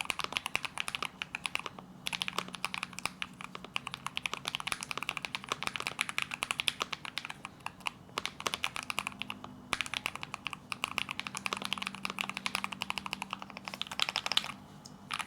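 Zuoya GMK67 mechanical keyboard with Feker Matcha V2 linear switches being typed on fast and steadily: a dense run of keystrokes with a few short pauses. The uploader calls the sound of these switches a loud "thock".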